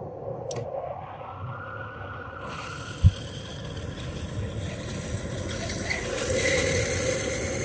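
2020 Kia Sportage cabin blower fan starting up with a rising whine, then a steady rush of air through the vents, run to push air through the evaporator after it has been sprayed with cleaner. A single low thump comes about three seconds in.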